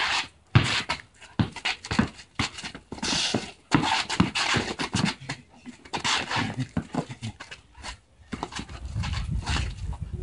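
Young Doberman puppy panting and scuffling in play on concrete, with many short sharp knocks and scuffs throughout and a low rumble near the end.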